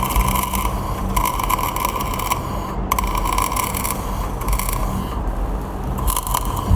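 Electric arc welding: the arc crackles and sizzles in stretches of a second or two, over a steady low hum.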